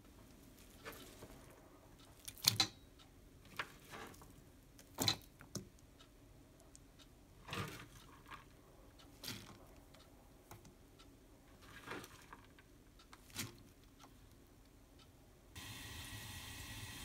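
Scattered clinks and taps of a metal spoon against a stainless steel mixing bowl as chopped onion and enoki mushrooms are scraped in, a few of the clinks ringing briefly. Near the end a steady hum starts.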